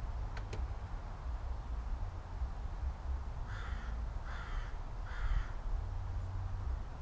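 Three harsh bird calls, one after another, less than a second apart, over a steady low rumble, with two quick clicks near the start.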